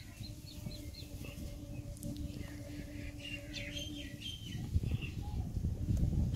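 Small birds chirping in short, high calls over a faint steady hum. In the last second or so, a louder low rustling takes over.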